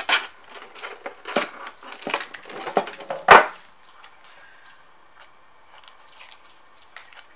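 Booster packs and the tin's contents being handled: a run of sharp clicks and crinkly rustles, with a loud knock a little over three seconds in, then only faint light rustling.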